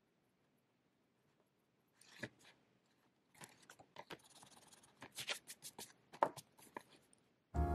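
Notebook paper rustling and scraping as a hand turns and smooths the pages, with light clicks of a pen being handled; these start about two seconds in. Piano music comes in just before the end.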